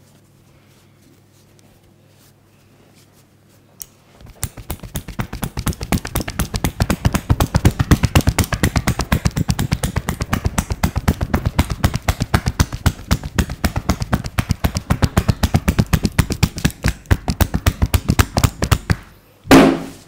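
A masseur's hands striking the body in rapid, rhythmic percussive massage strokes, several slaps a second. They start about four seconds in and run on for about fifteen seconds, ending in one louder smack.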